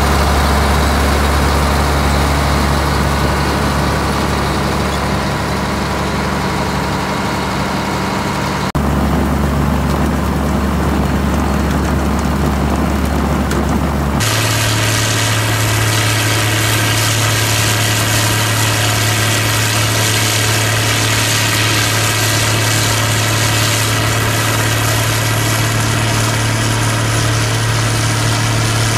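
Diesel engine powering a Haybuster IG10 pull-type tub hay grinder, running steadily with a deep hum. Partway through, the hum steps up to a higher steady pitch as the grinder runs at working speed.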